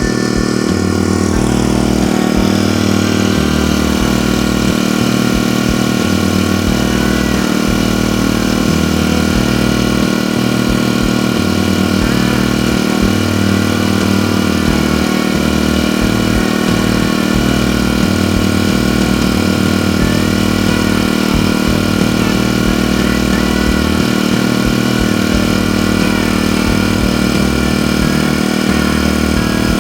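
Honda WX10T water pump's small 25 cc GX25 four-stroke engine running steadily at an even speed.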